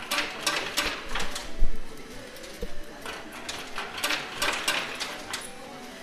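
Coins clicking and clattering in a coin pusher machine, in two quick irregular runs of sharp clinks.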